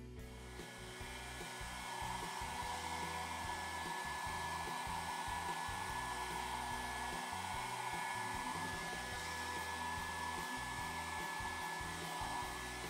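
Handheld hair dryer running steadily, a rush of air with a thin high whine, drying a Shih Tzu's wet coat after its bath. The sound builds up over the first couple of seconds, then holds steady.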